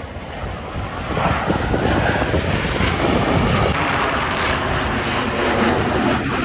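Blue Angels F/A-18 Super Hornet jets flying over, their engine noise growing louder about a second in and staying loud.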